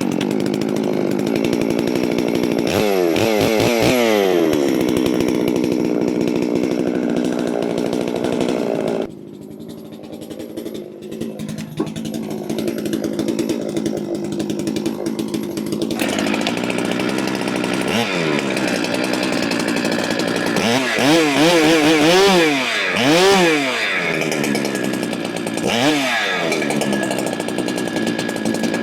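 Large gas chainsaw (a Holzfforma clone big saw) running hard, its engine pitch sliding down early on; about nine seconds in it drops to a lower, quieter speed, then picks back up around sixteen seconds, with several quick rises and falls in engine pitch near the end.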